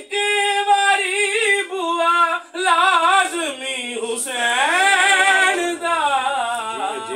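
A man singing a devotional qasida unaccompanied in a high voice, with long held, ornamented notes that waver in pitch, and short breaks for breath about two and a half and four seconds in.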